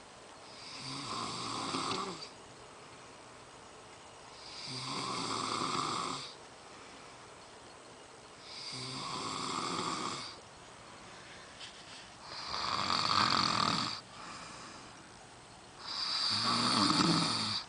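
A man snoring in his sleep: five long snores, one about every three and a half to four seconds, each building up over a second or two and then cutting off sharply.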